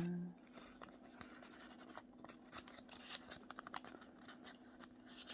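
Faint scratchy rustling and small clicks of a folded paper cicada being handled, most busy in the middle, over a steady low hum.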